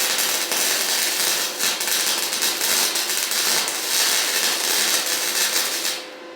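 Electric welding arc crackling steadily for about six seconds as a bead is laid at the base of a steel pipe post, then cutting off near the end. A faint steady hum runs underneath.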